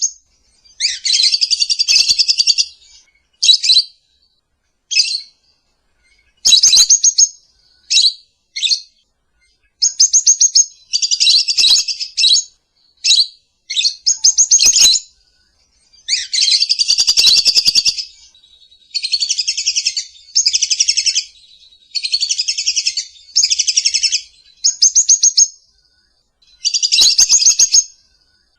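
Lovebird calling: bursts of high, rapid chirping chatter, each from a fraction of a second to about two seconds long, with short silences between them.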